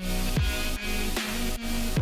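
Electronic dance music with a steady beat of about two and a half beats a second and deep, falling bass notes.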